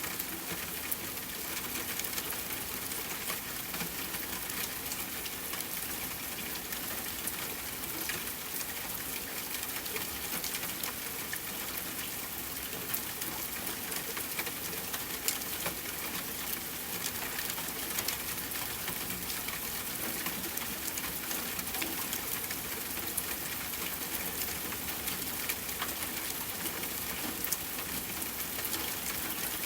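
Soft, steady rain falling: a dense even hiss of rainfall with many small, sharp drop ticks scattered through it.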